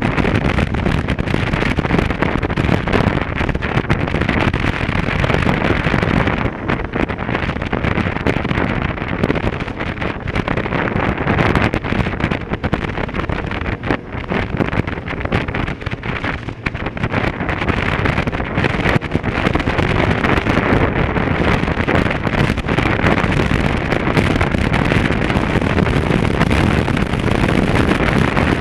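Wind buffeting the microphone over a motorcycle engine running at road speed. The rush eases somewhat partway through and builds again later on.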